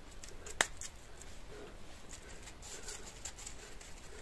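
Faint handling sounds of hands shaping soft cutlet dough and coating it in dry rolled oats: a single sharp click about half a second in, then soft scattered rustles.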